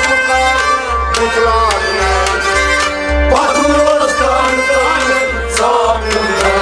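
Traditional folk music: a melody line that bends in pitch, with singing, over steady hand-drum percussion.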